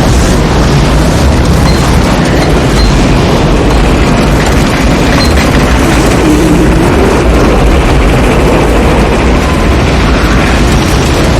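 Film sound effects of a tornado: a loud, unbroken roar of wind with a deep rumble.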